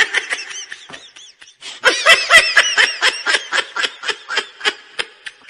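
Rapid high-pitched laughter in two bouts. The first trails off about a second in; a louder second bout starts about two seconds in and fades out near the end.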